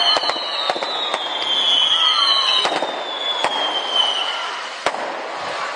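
Fireworks going off: long high whistles that slowly fall in pitch, cut through by sharp bangs about half a dozen times.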